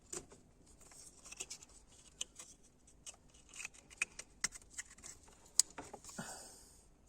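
Irregular light clicks and taps, one sharper click about two thirds of the way in, then a brief rustle near the end.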